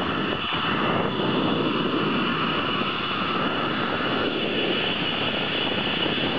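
Zip-line trolley running along the steel cable: a steady rushing whir with a thin high whine held throughout.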